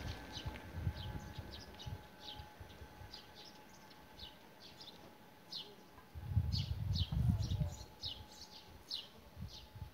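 Small birds chirping over and over, short high falling chirps a few per second. About six seconds in, a low rumbling on the microphone comes in for a couple of seconds and is the loudest thing heard.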